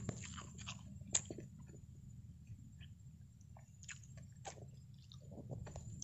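Faint chewing and scattered small clicks of someone eating a rice meal, with one sharper click about a second in, over a steady low rumble.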